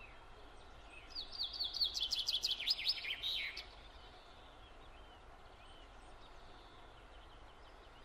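A songbird singing a quick run of sharply falling chirps for about two and a half seconds, then a few faint scattered chirps, over a low steady outdoor hiss.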